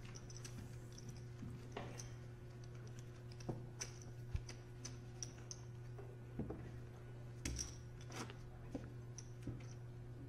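Poker chips clicking as players handle and riffle their stacks: scattered light clicks at an uneven pace over a faint steady hum.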